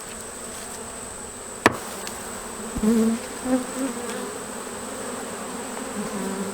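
Buckfast honeybees buzzing around an open hive, with individual bees flying close by in loud passing buzzes about three seconds in. A single sharp click sounds just under two seconds in.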